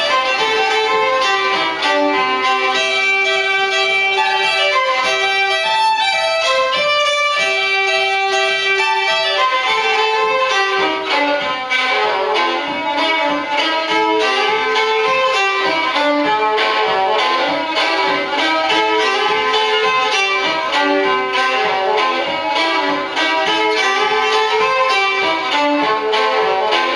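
Solo 19th-century fiddle, bowed, playing an old tune: a continuous melody of changing notes that moves into quicker runs partway through.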